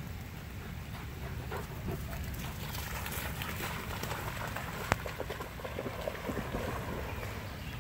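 Two shepherd dogs splashing as they run through shallow river water, over a steady hiss of rain and wind on the phone's microphone. A single sharp click comes a little past the middle.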